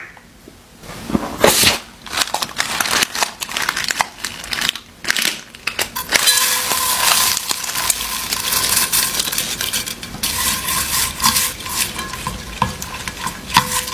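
Slime being handled in a glass dish: irregular wet squelches, clicks and taps, becoming a dense, continuous crackle about halfway through as slime and sequins are stirred together by hand.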